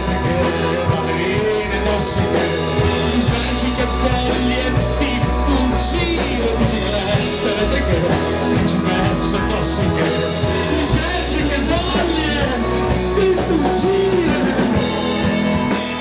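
Rock band playing a song: electric guitar, bass guitar and drums, with a man singing over them.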